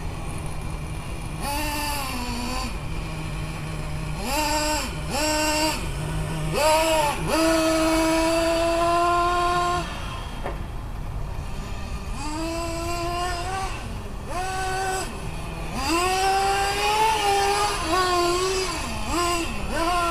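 Small two-stroke glow engine of a 1/8-scale nitro RC car revving up and down as the car accelerates and slows. Its pitch rises sharply in repeated bursts, holds high for a couple of seconds around the middle, and drops back to a low idle between runs.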